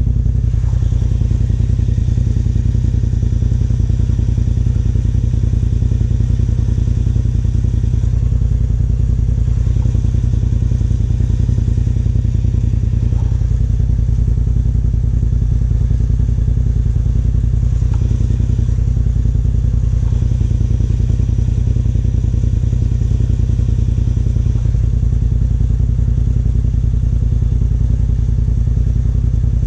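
Side-by-side UTV engine idling steadily, a constant low rumble while the machine sits waiting to be winched.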